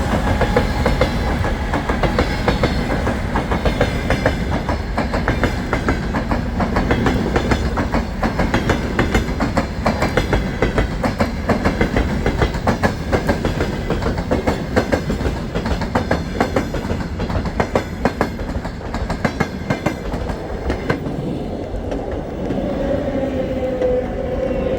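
Train wheels clattering over rail joints: a fast, steady clickety-clack of wheel knocks. Near the end the clatter thins out and a faint steady tone sounds.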